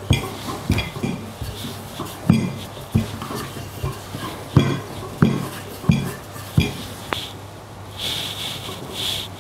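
Cutlery and dishes knocking and clinking: about a dozen irregular knocks, roughly two a second, with softer scraping near the end, as varenyky are made with a sauerkraut filling.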